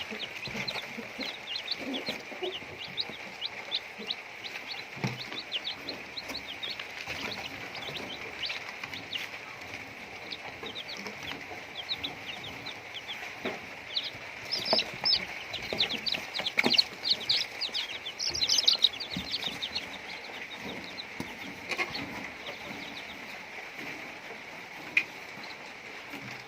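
Chickens clucking and chirping as they feed, with many short high chirps coming thick and fast and busiest about two thirds of the way through, over a steady high background hiss.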